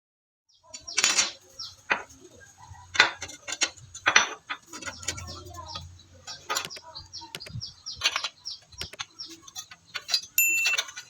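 Irregular clinks and taps of metal pieces being handled and set down, with a brief metallic ring near the end.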